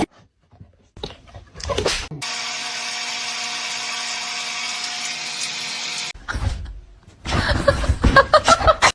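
A small electric motor whirring steadily for about four seconds, then cutting off abruptly. It is followed by a run of quick, irregular pulses near the end.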